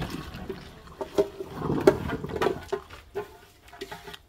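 Rinsed shredded potatoes and their water poured from a bowl into a plastic colander in a stainless steel sink: water splashing and draining through the colander, with a few light knocks as the bowl is shaken out over it.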